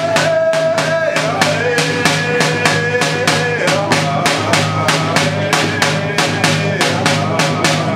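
Round dance song: a group of singers beating rawhide hand drums in a steady, even beat while singing together in unison, the melody held on a high note and then stepping downward.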